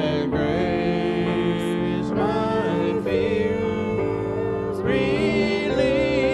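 Gospel worship music: a voice singing a slow, drawn-out melody over steady held chords from the accompanying instruments.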